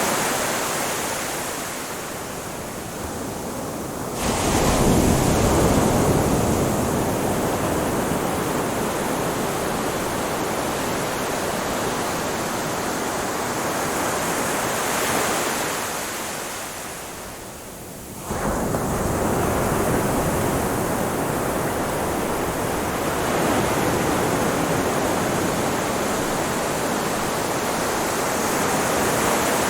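Ocean waves washing onto a beach as a steady rushing noise, fading in a lull and then surging up suddenly twice, about four seconds in and again about eighteen seconds in.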